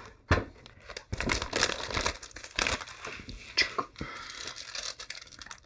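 Plastic instant-noodle packaging and seasoning sachets crinkling and rustling as they are handled, in irregular bursts.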